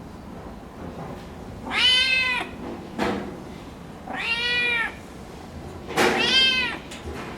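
Domestic cat meowing three times, each call under a second long and rising then falling in pitch, with a short sharp click between the first and second meow.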